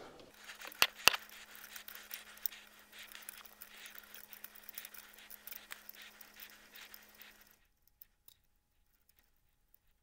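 Small metallic clicks and scrapes of a bolt and nut being worked off a sealed lead-acid battery terminal with pliers and fingers, with two sharper clicks about a second in. The sound stops abruptly about seven and a half seconds in.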